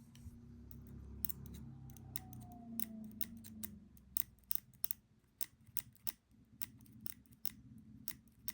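Small metal lock parts and tools being handled on a table: irregular sharp clicks and ticks, a few a second, with a low hum under them for the first half.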